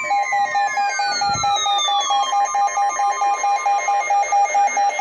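Electronic alarm beeping rapidly at one steady pitch, about four beeps a second. Falling electronic sweep tones fade out over the first two seconds.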